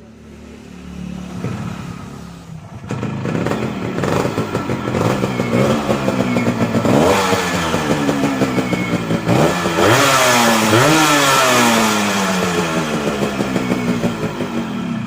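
Yamaha RX100's two-stroke single-cylinder engine revved several times, its pitch climbing and dropping back repeatedly.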